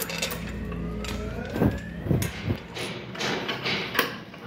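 A few sharp metal knocks and clanks of hand tools against engine parts, over a steady low hum with a faint rising whine in the first half.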